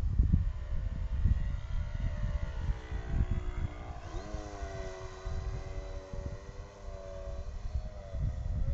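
Wind buffeting the microphone, with the MX-2 RC aerobatic airplane's motor droning in the air; the motor's pitch rises sharply about four seconds in, then holds with slight wavers.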